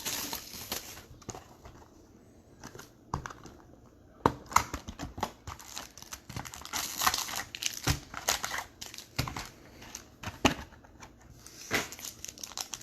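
Plastic packaging crinkling and tearing in irregular bursts with small clicks, as a sealed box of trading cards and its foil packs are handled and opened.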